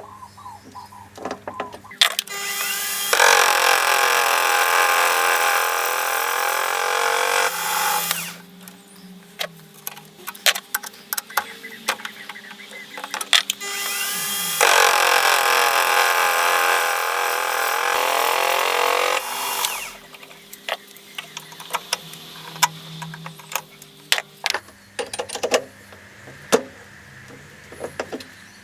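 Warco WM180 mini lathe running with a steady hum while cutting brass stock. Two loud spells of cutting noise last about five seconds each, with scattered clicks between them.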